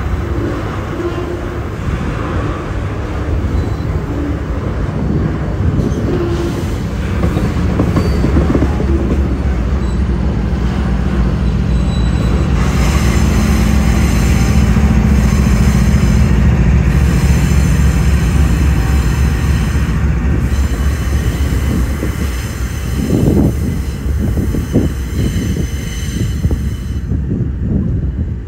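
Loaded double-stack container freight train rolling past: a steady low rumble of locomotive and wagons, with a high wheel squeal setting in a little before halfway.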